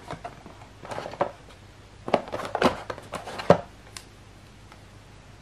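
Hard plastic dental impression trays handled and knocking against each other and the cardboard kit insert: a scattering of short clicks and taps, then quiet handling after about four seconds.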